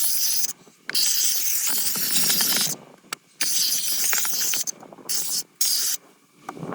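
Compressed air hissing from an air-powered interior cleaning gun, in five bursts of half a second to nearly two seconds with short breaks between them.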